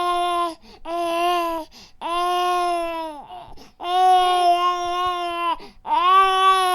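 Baby crying: a run of five wails with short breaths between them, each holding a steady pitch and dropping off at its end, the longer ones lasting nearly two seconds.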